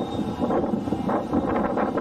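Electric commuter train running past on the line, a steady rumble with a run of short wheel knocks in the second half.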